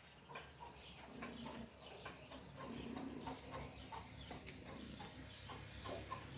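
Animal calls: a rapid run of short, high calls, with a lower rough note about a second in and again near the middle.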